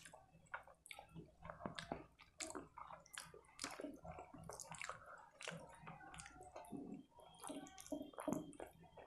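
Faint wet squishing and clicking of fingers kneading rice into sarson ka saag and curry on a plate, mixed with chewing. Short irregular smacks run throughout.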